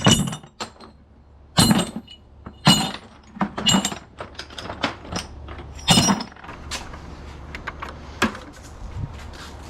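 Pieces of extruded aluminium scrap clanking and clinking as they are handled and dropped in for weighing: four loud sharp knocks in the first six seconds, then lighter rattles and clicks, over a low steady hum.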